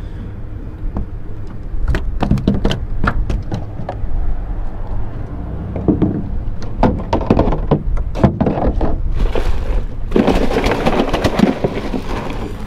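Gear and fish being handled on a plastic pickup-truck bed liner: a string of short knocks and clicks over a steady low wind rumble on the microphone. About ten seconds in there is a longer scraping rub as a foam cooler lid is pulled off.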